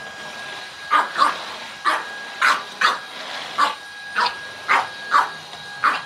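A puppy barks about ten times in quick, uneven succession at a running cordless stick vacuum, whose steady motor whine sounds underneath.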